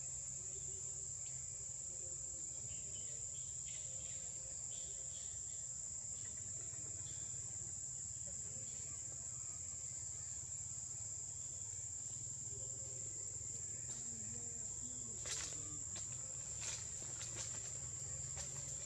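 Steady, high-pitched drone of insects in the forest, one unbroken tone throughout. A few short clicks or rustles come near the end.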